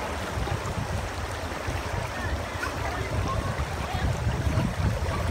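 Shallow river flowing steadily, a continuous rush of water with a heavy low rumble.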